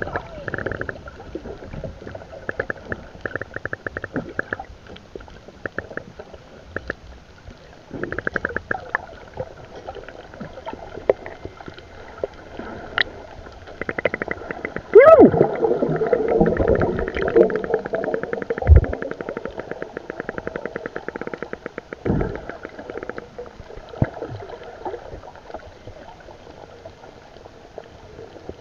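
Muffled underwater sound picked up through a camera housing: a low rumbling haze with recurring bursts of rapid ticking. About halfway through comes a louder gurgle of bubbles lasting a few seconds.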